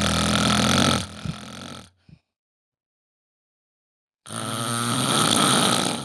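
Dinosaur (Tyrannosaurus rex) call sound effect: two long, deep, hoarse calls. The first is already sounding and fades out about two seconds in; after a silence, the second starts about four seconds in.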